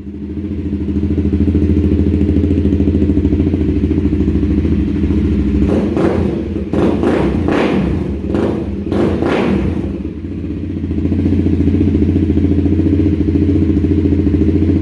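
Honda CBR300R's single-cylinder engine catching and running steadily at the start, with a few short throttle blips about a second apart in the middle. It is running after its clogged fuel injector was cleaned and refitted to cure bogging and rough idle.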